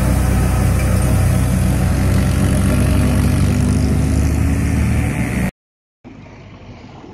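Heavy diesel engine of a concrete mixer truck running loud and steady as it passes close by. About five and a half seconds in the sound cuts out for half a second, then gives way to quieter road traffic.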